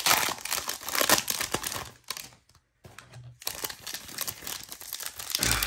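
Trading-card pack wrappers crinkling and tearing as packs are opened, with a short pause about two seconds in before the crinkling starts again.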